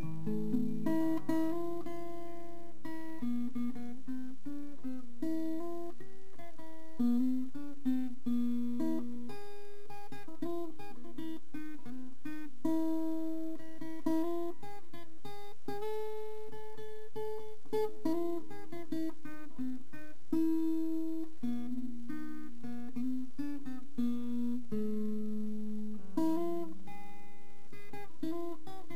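Instrumental background music: an acoustic guitar playing a plucked melody of notes, one after another.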